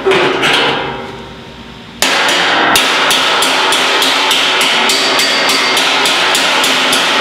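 Hammer blows on the stainless steel sheet of a Lynx grill hood as its edge is straightened, the metal ringing after each strike. One blow comes at the start, then from about two seconds in a fast, even run of blows.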